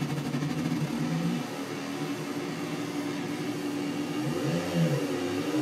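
Synthesizer tone from a DIY LM13700 VCO, its sawtooth and triangle waves multiplied together: a steady pitched drone that changes character about a second and a half in, then glides up and back down in pitch near the end as a knob is turned.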